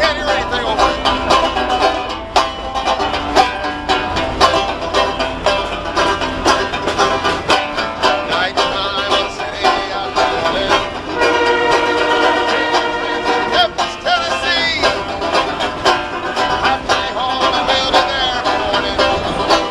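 Resonator banjo played in a fast picked bluegrass style. From about 11 seconds in, a steady held tone with several pitches sounds over it for about two and a half seconds.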